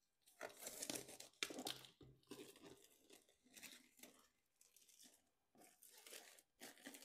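Clear plastic shrink-wrap being torn and pulled off a glossy book slipcase, in a series of short rips and crinkles, loudest in the first two seconds.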